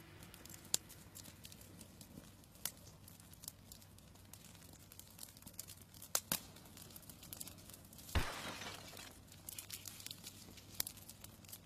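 Faint crackle of scattered sharp clicks over a low steady hum, with a short burst of hiss about eight seconds in.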